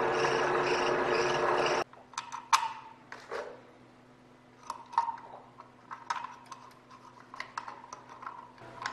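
Milling machine running steadily, cutting off abruptly about two seconds in. Then a scatter of light metallic clinks and taps as small steel tools and parts are set down and moved on a steel machine vise, over a faint steady hum.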